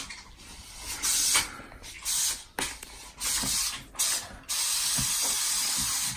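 Plastic toy packaging rustling as it is handled, in several short hissy bursts with a longer one near the end.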